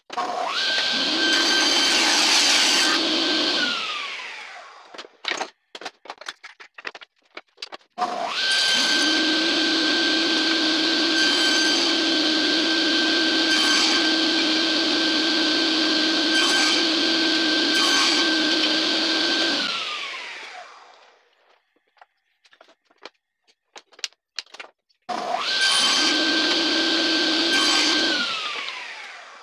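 Table saw switched on three times, cutting strips of scrap wood. It runs steadily for a few seconds, then for about twelve seconds, then for a few seconds more, and each time winds down with a falling pitch as the blade coasts to a stop. Short knocks of wood pieces being handled on the saw table come between the runs.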